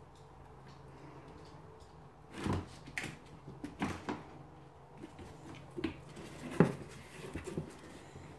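Cornish Rex kittens playing rough around a cardboard box: a run of irregular knocks, thumps and scuffs of cardboard and paws on a plastic tray, starting about two seconds in, with one sharp knock the loudest about two-thirds of the way through.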